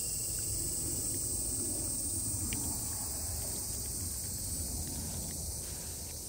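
Steady high-pitched chorus of insects, with a few faint clicks of stray cats crunching dry cat food from their bowls.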